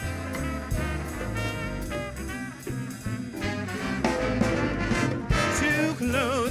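Live big band playing an instrumental swing passage: trumpets and trombones carry the line over a steady beat of stepping bass notes and regular cymbal strokes.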